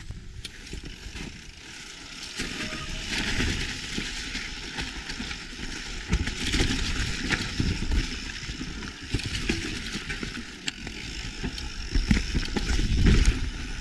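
Mountain bike riding over rough, rocky trail: the tyres roll over rock and roots, and the bike knocks and rattles often. Low rumbling surges grow louder near the end.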